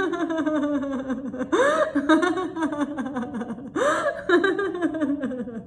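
A woman laughing out loud in a long run of quick 'ha-ha' pulses, with a couple of rising-and-falling swoops in pitch: deliberate laughter-yoga laughter.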